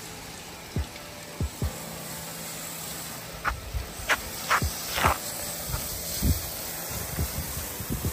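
Water hissing from a hose spray nozzle as it rinses a car's body, with scattered knocks and thumps, the loudest about five seconds in.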